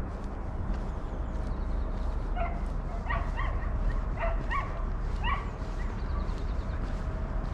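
A dog barking, about six short barks in quick succession over some three seconds, starting about two seconds in, over a steady low rumble.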